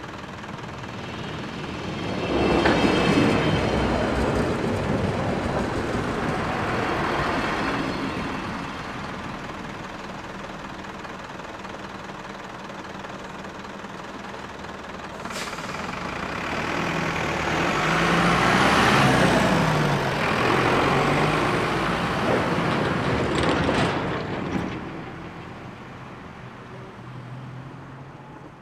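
A DB Regio train running past a railway level crossing, then road traffic crossing the tracks once the barriers are up: a truck's diesel engine pulling away with cars, swelling to its loudest about two thirds of the way through, with a sharp click as it starts. The noise fades away near the end.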